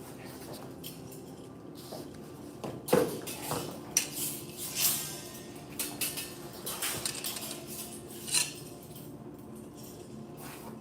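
Butterfly knives clinking against each other as they are worked through a form: a handful of sharp metallic strikes scattered across the stretch, the loudest about three seconds in, over a faint steady hum.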